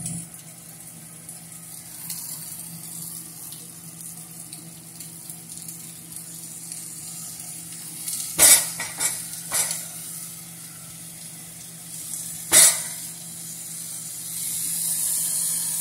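Vegetables sizzling in a frying pan, a steady hiss. About eight seconds in come three sharp knocks and a few seconds later one more, and the hiss grows louder near the end.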